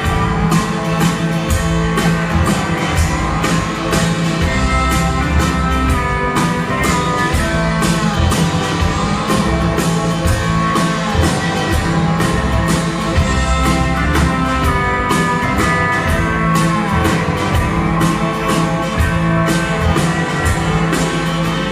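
Live band playing an instrumental passage between verses of a folk-rock song, with a steady beat and sliding melodic lines. It is a low-quality audience recording.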